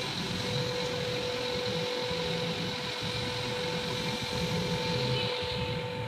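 Electric motor and exposed gear train of a three-roll plate bending machine running steadily as its rollers curve a steel strip: a constant hum with a faint high whine over a low rumble.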